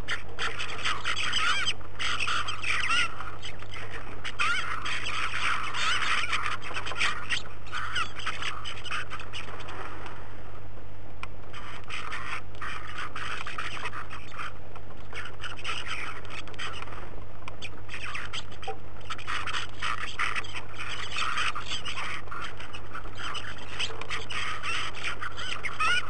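A feeding flock of bramblings calling, many short overlapping calls in a dense chatter that eases off briefly about ten seconds in. A steady low hum runs underneath.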